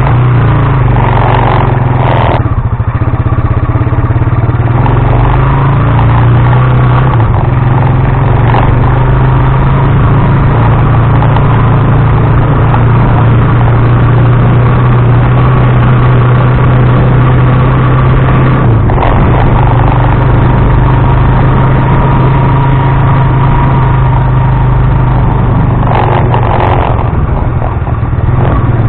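Motorised tricycle's motorcycle engine running steadily under way, heard close and loud through the action camera's microphone, with a few brief rattling bursts.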